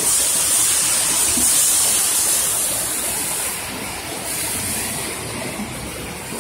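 Continuous crayfish fryer line running: a steady rushing hiss that eases off about three and a half seconds in.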